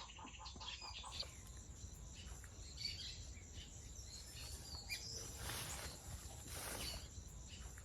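Outdoor ambience of scattered short bird chirps and insect calls over a low steady rumble, with two brief rustling noises a little after the middle.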